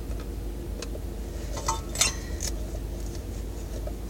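A few small clicks and, about halfway through, a short cluster of metallic clinks with a brief ring as the brass light-kit parts of a ceiling fan are turned and knock together. Under it, the steady low hum of the car running with its heater on.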